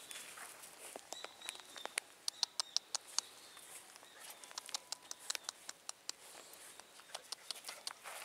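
Irregular light clicks and scuffs of two black puppies' paws and flip-flop sandals on gritty sand and gravel as the puppies play and jump around, a quick run of them about two to three seconds in.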